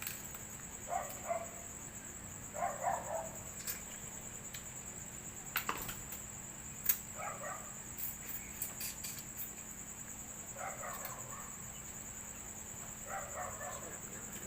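Steady high chirring of crickets or other insects, with a dog barking in short bursts every few seconds. A few sharp clicks and cracks sound in the middle stretch.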